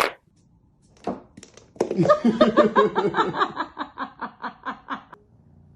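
A person laughing in a long run of quick pitched 'ha' sounds, about four a second, fading toward the end.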